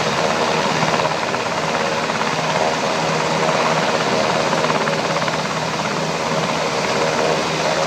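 UH-60 Black Hawk helicopter running steadily on the ground, its twin turboshaft engines giving a steady whine over the rotor noise.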